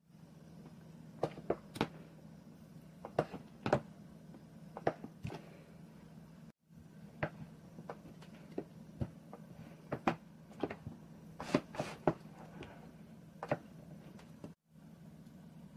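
Kitchen knife cutting through a block of grilling cheese and knocking on a wooden cutting board: irregular sharp taps, some in quick pairs, over a faint steady low hum.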